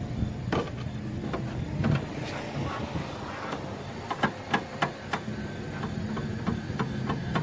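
Irregular sharp taps of a paintless dent repair hammer and knockdown tool on a car door's steel body panel, about a dozen short knocks spread unevenly, over a steady low hum.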